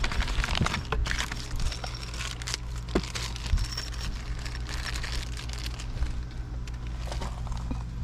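Hands working on a pool pump's drive unit: irregular clicks, taps and rustling scrapes of parts being handled, over a steady low hum.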